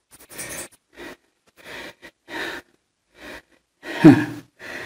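A person's heavy breathing in short, quick breaths, with a louder grunt about four seconds in.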